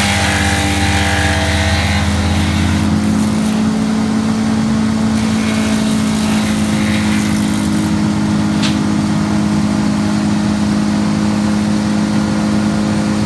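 Trailer-mounted tree chipper running at a steady pitch with nothing being fed into it, a constant engine drone.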